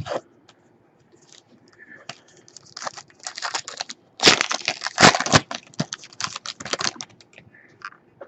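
Foil trading-card pack being torn open and crinkled, with cards rustling in the hands: a dense run of crackling from about three seconds in, loudest around the middle and dying away about seven seconds in.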